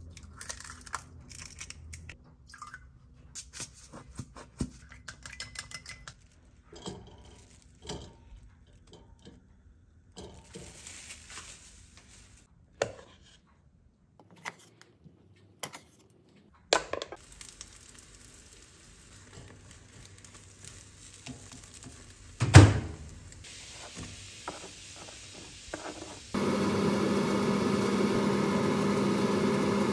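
A run of kitchen sounds: an egg cracked into a ceramic bowl, scattered taps, clinks and scrapes, and a rice paddle working cooked rice in a stainless steel rice-cooker pot. A single loud knock comes a little past the middle. Near the end a steady hum with sizzling sets in as sliced onions fry in a pan.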